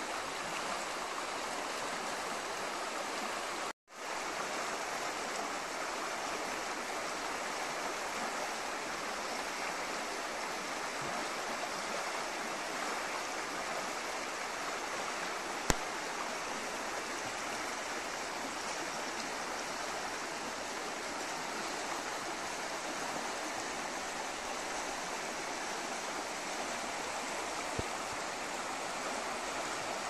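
Wümme river rapids: fast river water rushing and splashing in a steady, unbroken hiss. The sound cuts out for a moment about four seconds in, and a single sharp click comes near the middle.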